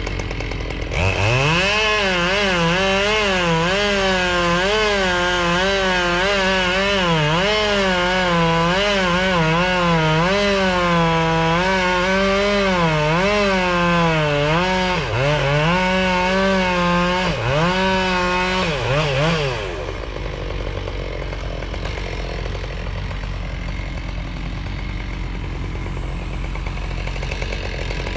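Battery-powered chainsaw spinning up from a standstill, its whine wavering and dipping as it cuts wood under load, then stopping about two-thirds of the way through and leaving a steady rushing noise; it spins up again right at the end.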